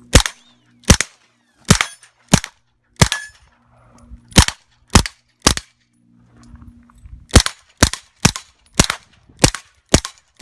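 Suppressed IMI Uzi 9mm with a Bowers Versa .45 suppressor firing 147-grain subsonic rounds: about fourteen shots, very quiet, at roughly two a second. They come in a run of eight, then after a pause of about two seconds a second run of six or seven.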